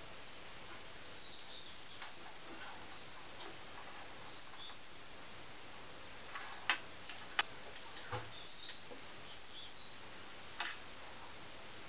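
Small clicks and taps of tiny model parts and pins being handled and fitted together on a wooden desk. The sharpest clicks come about seven seconds in. Steady hiss runs underneath, and faint bird chirps sound in the background.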